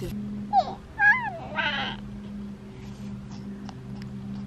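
A high animal call, twice, about half a second to a second and a half in: a short rising cry, then a longer one that rises and falls, followed by a brief breathy noise. A steady low hum runs underneath.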